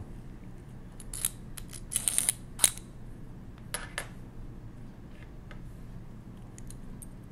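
Small metal parts of a 1920s Monroe mechanical calculator (springs, bushings and levers) clicking and clinking as they are slid off an axle and set down on the tabletop: a quick cluster of clicks about two seconds in, two more near four seconds, then a few faint ticks.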